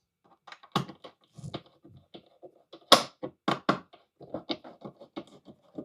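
Irregular small clicks and knocks of handling a screwdriver and old slot-head screws on the panel of a Festool vacuum, with a few sharper knocks about halfway through.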